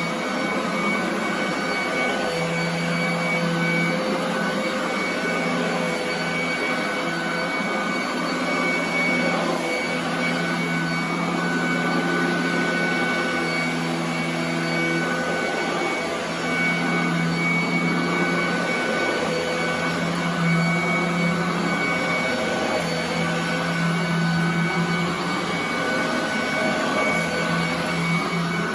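Royal commercial vacuum cleaner running steadily while vacuuming carpet, with a constant motor whine and a low hum that swells and drops away every few seconds.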